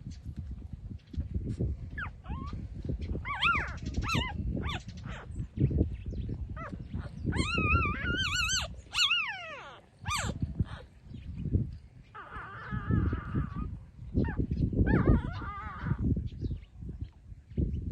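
Young puppies whimpering and squealing in short, high-pitched, wavering cries, several times over, above low scuffling and bumping noises.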